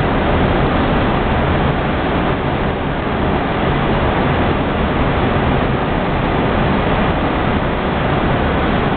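Steady cockpit noise of an Airbus A319 on final approach: airflow rushing past the nose and the engines running, a constant even rumble and hiss.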